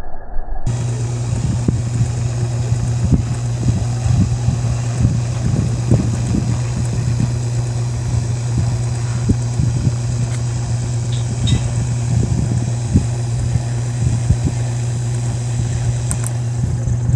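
A small motor switches on about a second in and runs at a steady low hum, with irregular knocks and rattles throughout. It is most likely the motor spinning a persistence-of-vision display.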